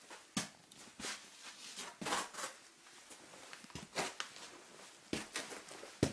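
Clothing and boots scraping and shuffling against sandstone rock as a caver climbs up a narrow cave passage: a series of irregular scrapes and rustles.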